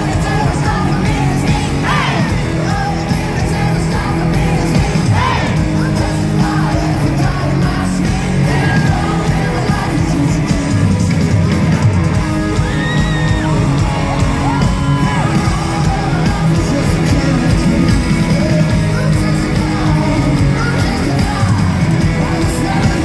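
Rock band playing live in a large arena, recorded from within the audience, with singing and crowd yelling over the loud, continuous music.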